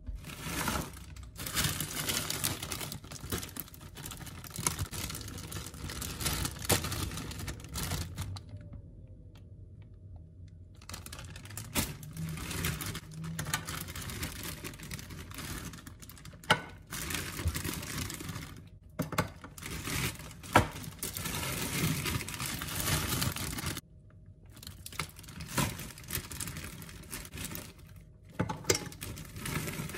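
Frozen cauliflower florets clicking and knocking as they are dropped one by one into an empty nonstick pot, with the plastic bag of frozen vegetables rustling and crinkling.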